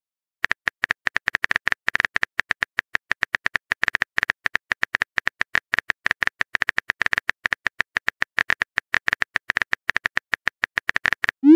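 Phone keyboard typing clicks, a rapid run of short, even taps as a message is typed out in a texting-story app, ending with the start of a short rising pop as the message is sent.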